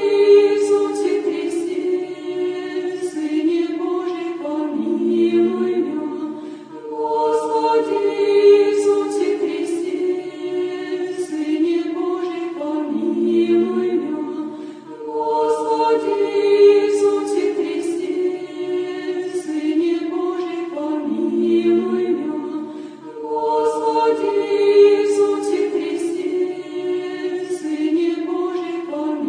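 Choir singing an Orthodox chant a cappella, one melodic phrase repeating about every eight seconds.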